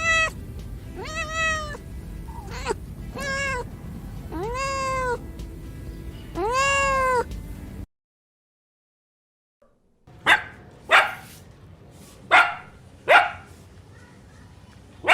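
A domestic cat meows about five times, each meow rising then falling in pitch. After a short pause, a dog gives several short, sharp barks.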